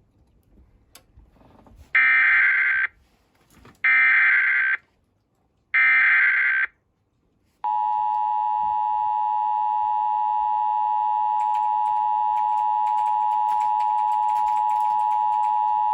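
Three short bursts of EAS SAME header data, each a little under a second and spaced about two seconds apart. About seven and a half seconds in, the two-tone EAS attention signal (853 and 960 Hz) starts and holds steady. Together they announce a severe thunderstorm warning.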